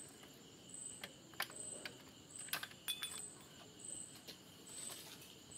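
Faint clicks and light knocks of a Hero Splendor's plastic front mudguard being worked out between the front fork legs after its bolts are removed, with a short metallic clink about three seconds in.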